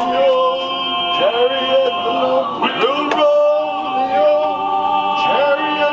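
Background music: a sea shanty sung by a man, with held, sustained notes in the accompaniment.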